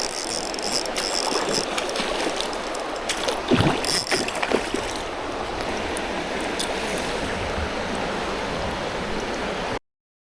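Mountain stream rushing steadily, with a few short clicks and knocks about halfway through; the sound cuts off abruptly near the end.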